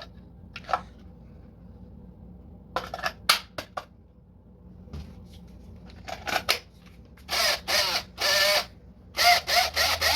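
A few plastic clicks, then a DeWalt 18V cordless drill powered through a 20V battery adapter running in about six short trigger bursts in the second half, its motor speeding up and slowing with each pull.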